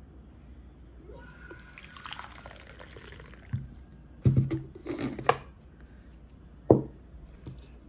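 A dark drink poured from a ceramic pot into a ceramic cup, a soft trickling for about two seconds, followed by a few sharp knocks of crockery set down on the table, the loudest about four and a half seconds in.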